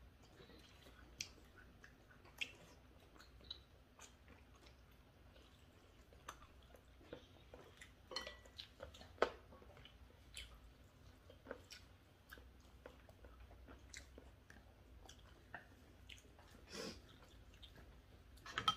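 Quiet chewing and eating, with scattered light clicks and taps of chopsticks against bowls and dishes.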